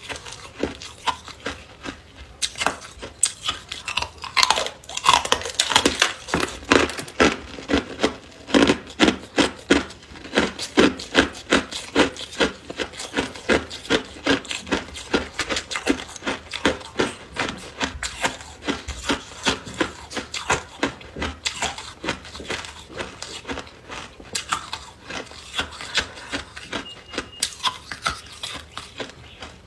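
Ice being chewed: a rapid, steady run of sharp, crisp crunches, several a second, busiest through the middle.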